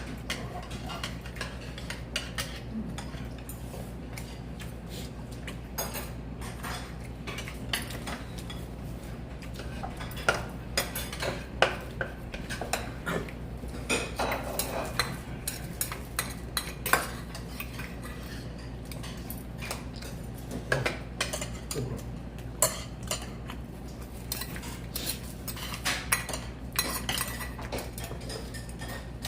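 Utensils clinking and scraping against dishes, in irregular short knocks that come thicker and louder in the second half, over a steady low hum.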